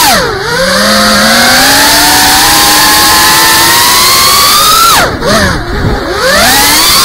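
FPV quadcopter's brushless motors and propellers whining loudly, the pitch following the throttle: a quick dip just after the start, a long slow climb, then two or three sharp throttle chops with brief drops in level a little past five seconds, before the whine rises again.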